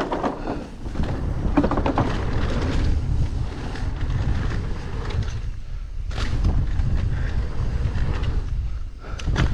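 Wind buffeting a bike-mounted action camera's microphone during a fast mountain-bike descent. Over the first few seconds the tyres clatter across wooden bridge planks and a plastic paver grid, then roll more quietly on dirt, with a few sharp rattles of the bike around six seconds in and near the end.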